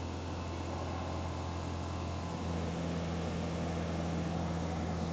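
Kitfox light airplane's engine and propeller droning steadily in flight; about two seconds in a second low tone joins and the drone gets slightly louder.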